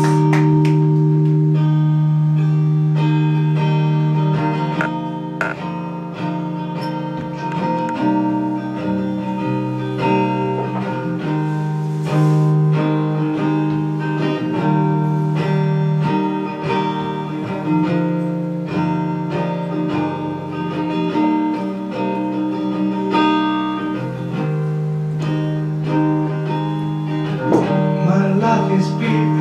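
Acoustic guitar played live, with long held low notes ringing under shorter notes above.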